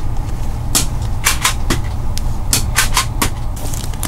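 Bagged comic books being flipped through in a box: a run of about eight sharp plastic clicks and slaps at an uneven pace, over a steady low rumble.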